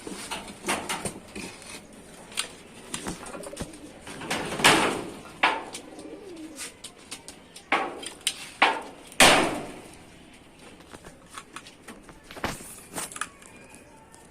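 Pigeons cooing in a loft, with scattered sharp clicks and knocks; the loudest knocks come about five and nine seconds in.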